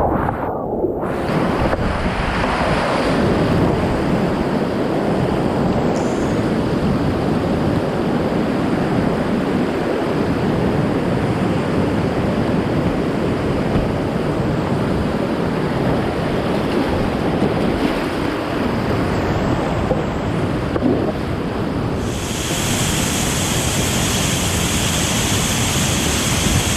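Whitewater rapids rushing in a steady, loud wash of water, with some wind buffeting the microphone. About 22 seconds in the sound changes abruptly and turns brighter and hissier.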